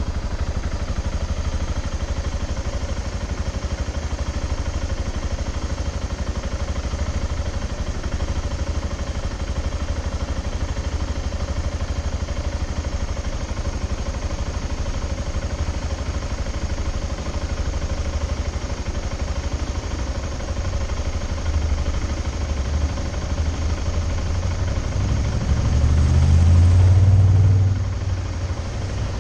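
BMW G 650 GS single-cylinder motorcycle engine idling steadily while stopped in traffic. A louder low rumble swells and fades for a few seconds near the end.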